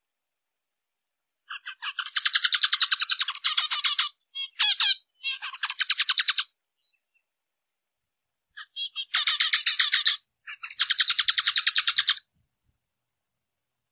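Zebra finch calling in several bursts of rapid, evenly pulsed, high-pitched notes, each burst from half a second to two and a half seconds long, with silent gaps between them.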